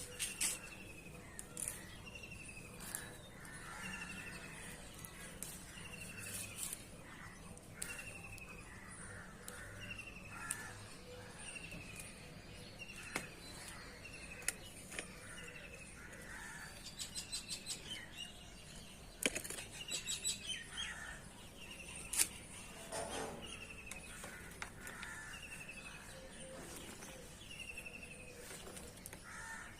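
Outdoor morning birdsong. One bird repeats a short, falling whistled note every second or so, other birds chirp now and then, and a rapid run of ticking notes comes near the middle.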